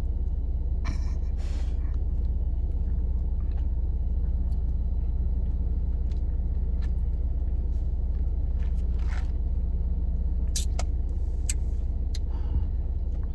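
Steady low rumble of a car's engine idling, heard inside the cabin, with a few short clicks and rustles over it.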